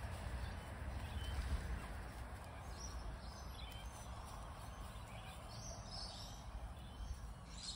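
Steady low background rumble with faint, short bird chirps scattered through the second half.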